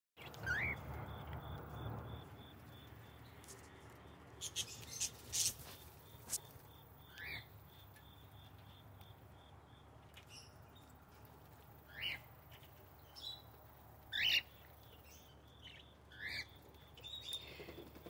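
Cockatiels and budgies chirping: short rising chirps every few seconds, with a brief run of sharper, higher calls partway through.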